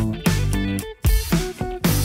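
Instrumental background music with guitar, briefly dropping out about halfway through.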